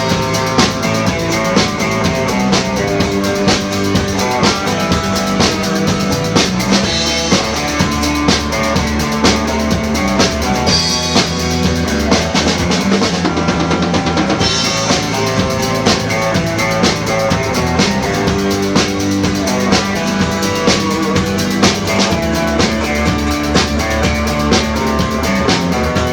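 Rock band playing an instrumental passage of the song, with no vocals: a drum kit keeps a steady beat on bass drum and snare under sustained pitched instrument notes.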